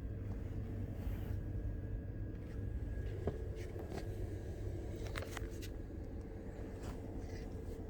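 Steady low rumble of a moving passenger train heard from inside the coach, with a constant hum and a few light clicks and rattles about three and five seconds in.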